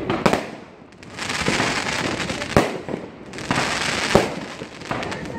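Fireworks bursting in the sky: three sharp bangs, near the start, in the middle and about four seconds in, with long stretches of dense crackling between them.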